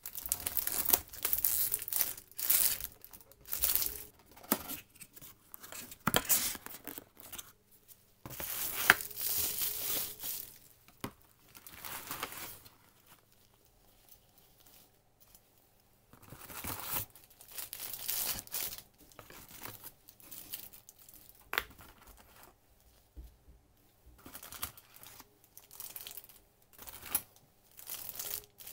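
Packaging being handled: paper leaflets rustling, a fabric pouch and plastic bags crinkling, in irregular bursts with short quiet gaps.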